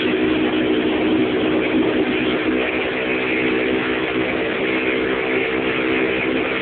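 Moped engine running steadily at speed while riding, its note holding level, with a steady rushing noise over it.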